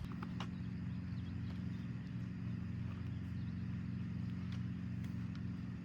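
A steady low machine hum, like an engine running, with a few light clicks over it.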